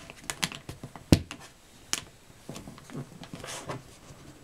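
Sheet of paper being folded and creased by hand: irregular crinkles and sharp crackles, with one louder knock about a second in.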